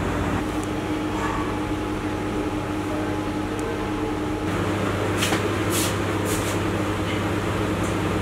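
Steady low mechanical hum of running kitchen appliances, with a few short light clicks about five to six and a half seconds in.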